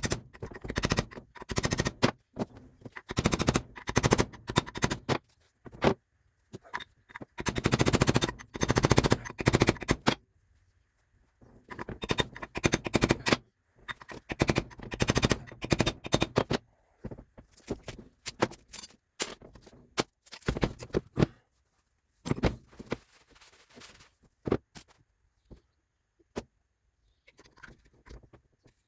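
Bursts of rapid, sharp knocks from tools working metal, a few seconds at a time with short pauses. The knocks are densest and loudest in the first ten seconds and sparser later.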